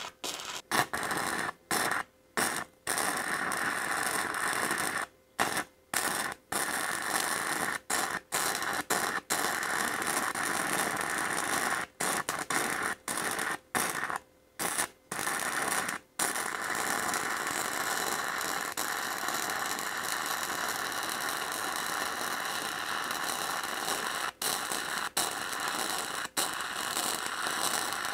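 Wire-feed welder's arc crackling as bolts are welded to a steel plate. It stops and restarts many times in the first half, in short runs, then runs steadily with only a couple of brief breaks.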